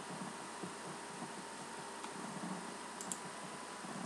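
Faint steady hiss of microphone and room noise, with a couple of small clicks at the computer about three seconds in.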